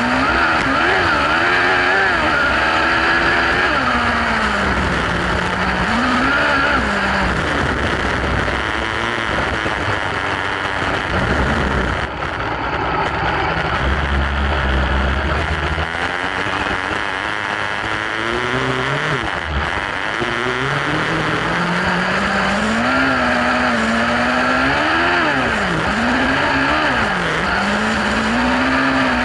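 Kawasaki ZX-12R 1199 cc inline-four motorcycle engine in a kartcross buggy, heard on board while it is driven hard on dirt, its revs rising and falling again and again, with a brief lift off the throttle about twelve seconds in.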